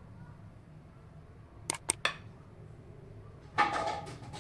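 Clinks of a utensil against glass and ceramic baking dishes: a quick pair of sharp clinks about two seconds in, then a longer, louder clatter near the end.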